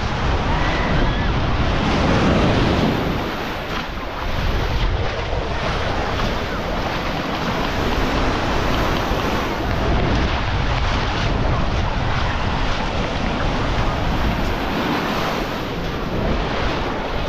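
Baltic Sea surf washing onto a sandy beach in a steady rush, with wind buffeting the microphone.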